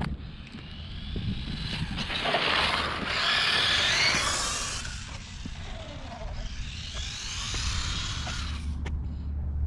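Stock brushed electric motor and gears of a Traxxas 1/16 Slash RC truck whining as it drives on concrete, the pitch rising and falling with the throttle, loudest as it passes about three to four seconds in and again more faintly near the end.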